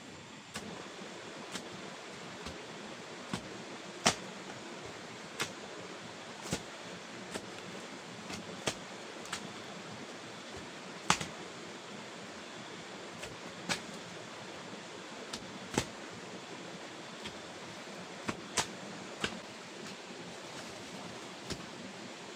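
A hoe chopping into earth, sharp strikes about once a second at an uneven pace, over a steady hiss.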